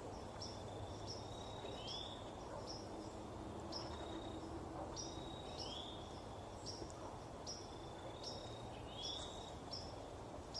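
Outdoor autumn ambience: insects and birds chirping, with short high chirps repeating about every half second to a second and a thin steady high trill broken by a few rising chirps. Under them is a low, even background rumble.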